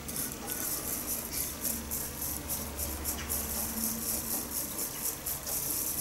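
Bamboo matcha whisk (chasen) swishing rapidly through matcha and water in a ceramic bowl: a quiet, even rustling made of fast, regular back-and-forth strokes, as the tea is whisked to raise a foam.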